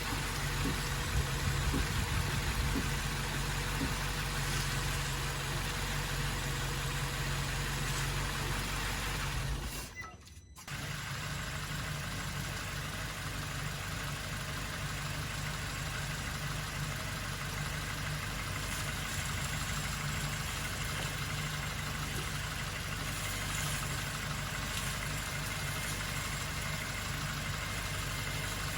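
Suzuki Jimny Sierra JB74's 1.5-litre four-cylinder engine running steadily with an even low hum. The sound drops away briefly about ten seconds in, then resumes unchanged.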